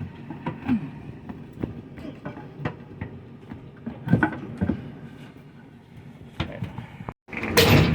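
Scattered knocks, creaks and scrapes as a water heater's metal shell is pried loose and dragged, with a brief loud burst of noise near the end.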